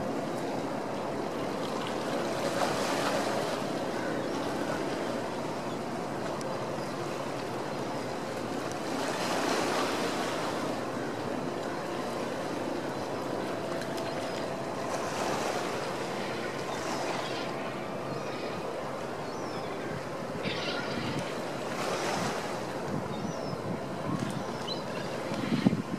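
Harbour water washing in slow surges about every six seconds, with wind on the microphone and a faint steady hum that fits the passing SeaBus catamaran's engines. A single sharp knock comes just before the end.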